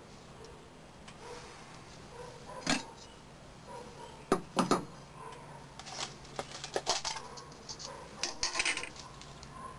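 Metal spoon clinking against a glass jar and scraping through sodium nitrate crystals as a spoonful is scooped out. Scattered sharp clinks, loudest around the middle, with a short scrape near the end.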